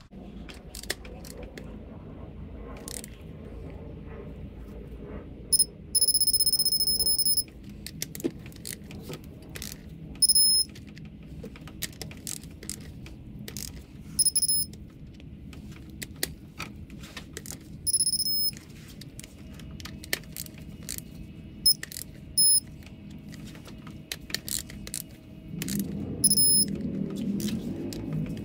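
Digital torque wrench beeping as cylinder-head bolts are pulled to the set torque: one long high-pitched beep about six seconds in, then short beeps every few seconds. Between the beeps its ratchet head clicks as the wrench is swung back for the next pull.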